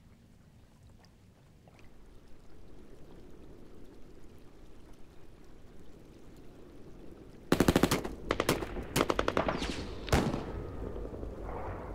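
Machine-gun fire in several short rapid bursts, starting about two-thirds of the way in, over a low rumble that swells during the first seconds.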